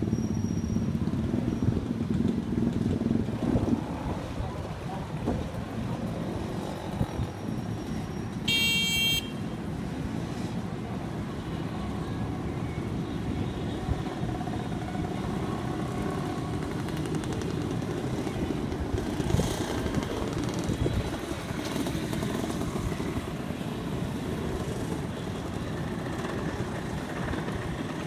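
Engines of a large group of motorcycles and scooters running together. A brief high-pitched horn toot sounds about nine seconds in.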